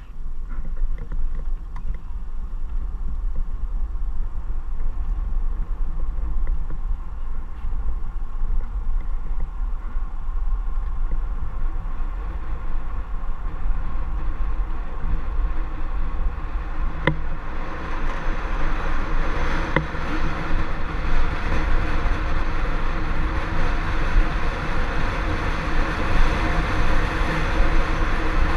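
Racing Bobby-Car coasting downhill on asphalt: steady rolling rumble of its wheels with wind rushing over the onboard microphone. The noise grows louder and hissier a little past halfway as the car picks up speed, with a single sharp click at about that point.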